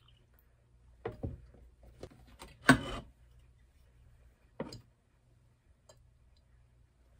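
Tableware handled on a kitchen countertop: a few knocks and clunks as a milk carton, a glass and a ceramic plate are set down and picked up, the loudest about two and a half seconds in and another near five seconds, over a low steady hum.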